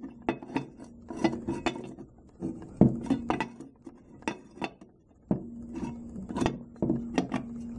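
Metal parts of a cut-away Briggs & Stratton engine being handled: the side cover clinking and knocking against the block in a string of short, irregular knocks.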